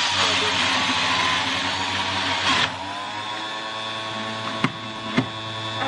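Electric centrifugal juicer's motor running with a steady hum and whine. It is louder with a rushing, grinding noise for the first two and a half seconds or so, then drops to a quieter, steadier run. Two short sharp clicks come near the end.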